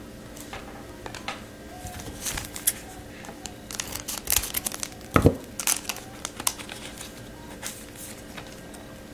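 Trading-card pack wrapper being torn open and crinkled, with scattered crackles and a single soft thump about five seconds in.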